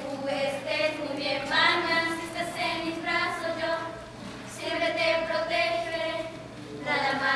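Children's voices singing a song with long held notes.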